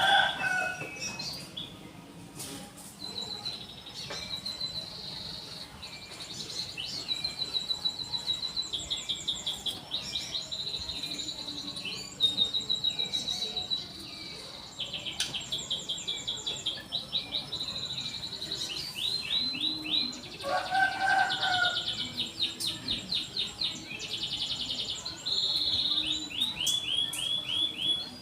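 Canary singing long, rapid trills and rolls with repeated high chirping phrases, the kind of song played to prompt other canaries to sing. A short lower-pitched call breaks in about two-thirds of the way through.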